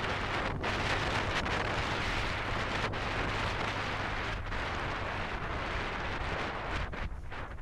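Wind rushing over the microphone of a camera on a moving Royal Enfield Himalayan motorcycle, with the engine running steadily underneath. The rush eases briefly near the end.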